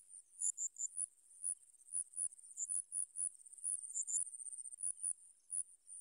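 Insects chirping: irregular short, very high-pitched chirps, several a second, over a steady high buzz, with a quick run of three slightly lower chirps about half a second in.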